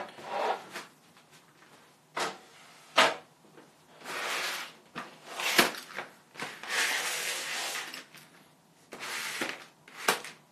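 Clear plastic food trays of raw chicken pieces being handled, slid and set down on a table: sharp knocks a few times, with scraping, rustling stretches between them.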